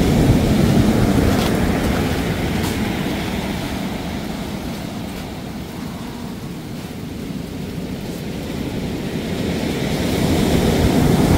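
Heavy surf breaking on a sandy beach: a rushing wash of waves that eases off around the middle and builds again near the end.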